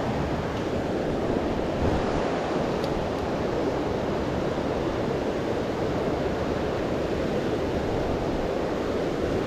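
Mountain river rushing steadily over boulders and through small rapids, a constant even wash of water noise.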